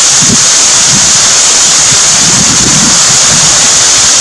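Heavy rain falling in a loud, steady hiss, with rainwater pouring off a roof edge and splashing below.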